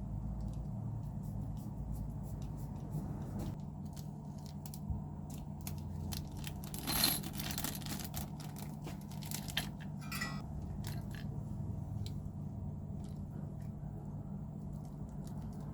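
Small clicks and scrapes from hand work with small parts, over a steady low hum. A brief louder scrape comes about seven seconds in and a shorter one about ten seconds in.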